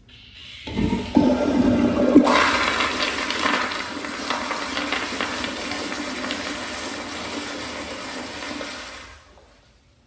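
American Standard Madera flushometer toilet flushing. The water rushes in suddenly about a second in and gets louder a second later. It then goes on as a steady swirling rush down the drain and fades out near the end.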